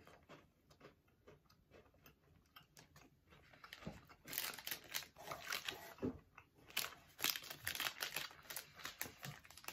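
A mouthful of Salted Caramel Twix being chewed close to the microphone: faint at first, then irregular crunching of the biscuit from about four seconds in.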